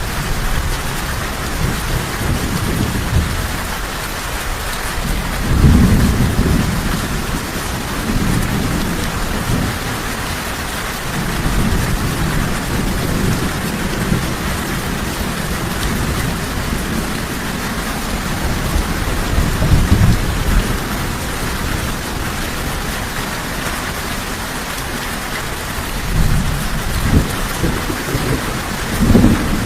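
Steady heavy rain with rolling thunder: low rumbles swell and fade several times, loudest about six seconds in, near twenty seconds, and again toward the end.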